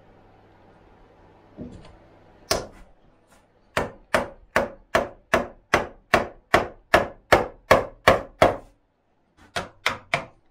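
Wooden mallet striking a chisel, chopping a mortise into a timber beam. One blow, then a steady run of about a dozen blows at roughly two and a half a second, and after a short pause three quicker blows near the end.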